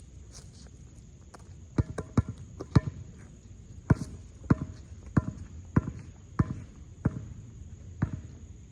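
A basketball being dribbled, about ten bounces starting about two seconds in, a little over half a second apart. A steady high insect buzz runs underneath.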